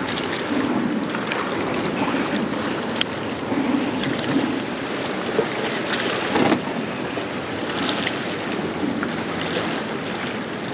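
Water lapping and sloshing against a kayak hull, with wind buffeting the microphone and a few light clicks and knocks of handling; a slightly louder rustle comes about six and a half seconds in.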